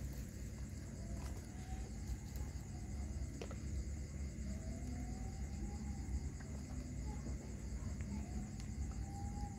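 Crickets chirping steadily at night, a high pulsing trill, over a constant low rumble, with a few faint clicks.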